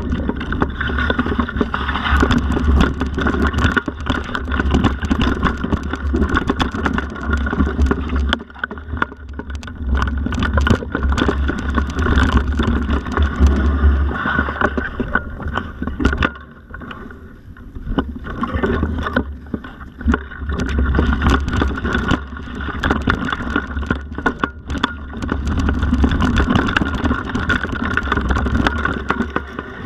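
Mountain bike ridden fast over a rough dirt forest trail: a heavy low rumble of wind buffeting the action-camera microphone, with constant rattling and clatter from the bike and tyres on the bumpy ground. The noise drops for a couple of seconds a little past the middle, then picks up again.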